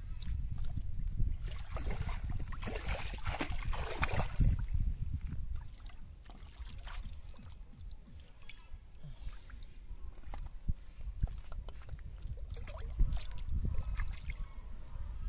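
Shallow water splashing and sloshing as hands work in it at the water's edge. It is louder for the first few seconds, then turns to quieter, scattered small splashes and clicks over a low rumble.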